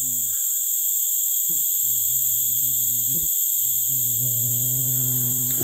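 Steady, high-pitched chorus of insects, continuous and unbroken. A low steady hum joins about four seconds in.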